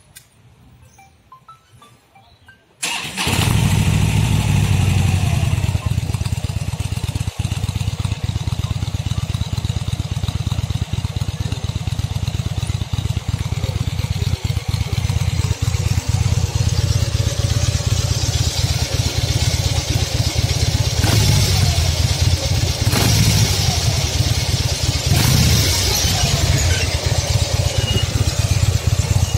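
Harley-Davidson Street Bob's 1745 cc V-twin on its stock exhaust starting up about three seconds in, then idling with a steady pulsing rumble. It is revved briefly three times in the last third.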